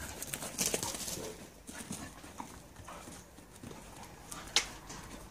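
Two dogs tussling and romping on grass: soft, irregular scuffling of paws and bodies, with one sharp snap about four and a half seconds in.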